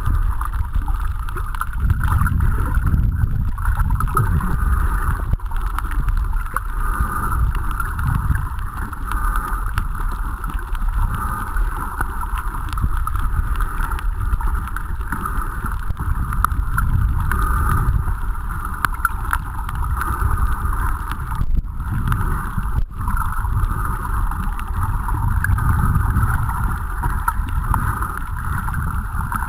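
Steady, muffled underwater noise picked up by a camera in a waterproof housing: a low rumble of water movement with a hiss above it, and faint scattered clicks.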